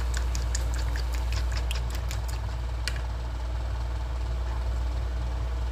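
Silicone spatula stirring thick flour batter in a plastic bowl: light clicks and wet slaps for the first three seconds or so, then the stirring stops. A steady low hum runs underneath.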